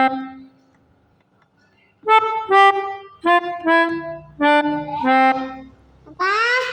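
Pianika (melodica) playing the 'telolet' bus-horn tune. A held low note stops just after the start; after a short pause come six quick notes in three pairs, each lower than the last. A short rising glide comes near the end.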